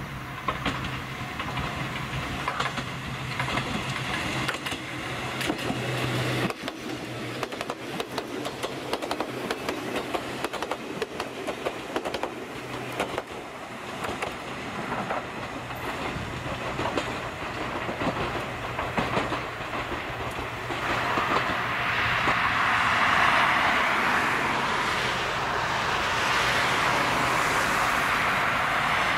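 Ichibata Electric Railway 3000 series electric train (ex-Nankai 21000 series) running along the line, its wheels clicking over the rail joints, with a steady low hum through the first half. About 21 seconds in, a louder, steady hiss takes over.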